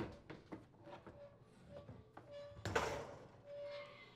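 A dishwasher's plastic inner door panel being pulled off the door frame: faint clicks and rubbing, a scrape about two and a half seconds in, and short squeaks of plastic on plastic, the longest near the end.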